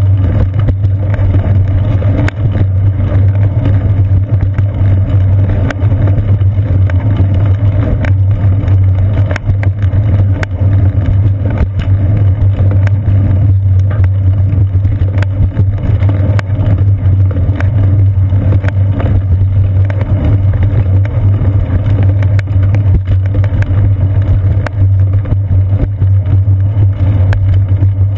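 Ride noise from a bicycle's seat-post-mounted camera: a loud, steady low rumble of wind and frame vibration as the bike rolls over concrete, with scattered faint light knocks.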